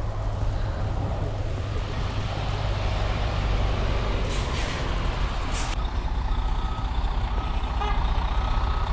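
A heavy vehicle's engine running with a steady low rumble. Two short air hisses come about four and a half and five and a half seconds in. From about six seconds a repeating warning beep starts.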